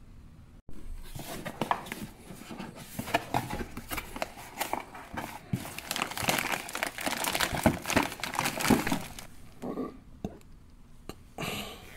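Clear plastic wrapping crinkling and rustling as a spinning fishing reel is unwrapped and handled in its cardboard box. The dense crackling dies down about ten seconds in.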